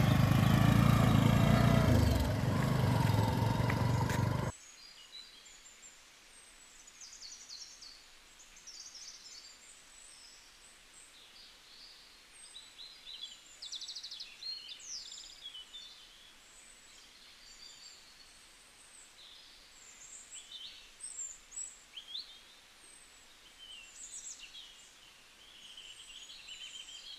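A small motorcycle engine running as the bike pulls away, cut off abruptly about four and a half seconds in. Then a quiet rural background with many small birds chirping and calling.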